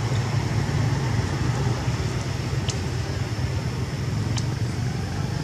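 Steady low outdoor rumble, with a faint steady high tone above it. Two brief high chirps come about halfway through and again near the end.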